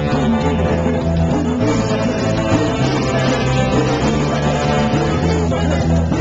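Live rock band playing loudly: saxophones over electric guitar and a steadily walking bass line, with no break.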